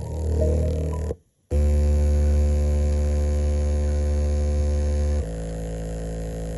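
Small oval loudspeaker driver playing a steady low hum with many overtones. It cuts out for a moment about a second in, comes back loud, and about five seconds in drops to a quieter tone of a different pitch.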